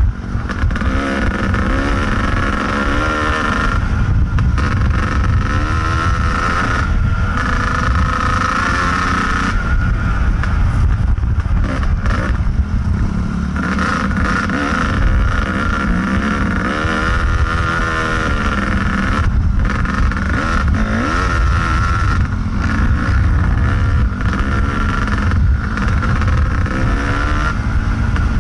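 Kawasaki KDX220 dirt bike's two-stroke single-cylinder engine running under riding load, its revs rising and falling over and over with the throttle.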